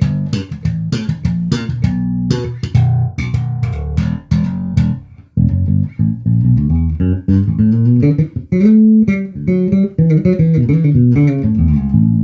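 Carvin Icon 5 five-string electric bass with single-coil pickups, played through a bass amp in passive mode with the pickup blend centred: a run of sharply plucked notes for about five seconds, then a smoother moving line, ending on a held note.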